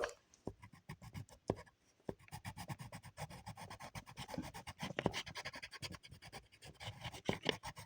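A drawing tool scratching rapidly back and forth on paper as a drawing is coloured in, in sparse strokes at first and then a dense, continuous scribble.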